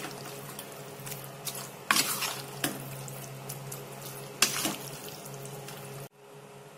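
Spatula stirring raw chicken pieces through thick, wet masala gravy in a nonstick pan: steady squelching and sloshing, with a few sharper scrapes against the pan about two seconds in and again about four and a half seconds in. The sound drops away abruptly near the end, leaving only a faint hum.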